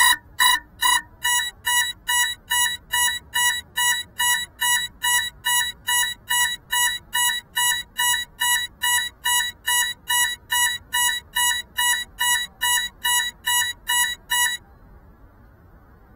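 Crashed FPV quadcopter's lost-model alarm beeping: one high beep repeated evenly about twice a second, which then stops. It is the signal for finding the downed drone.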